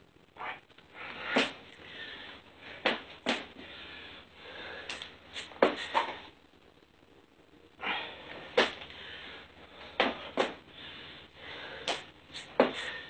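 A person breathing hard in hissing puffs while doing burpee jumping jacks, with about a dozen sharp impacts scattered unevenly through the exercise.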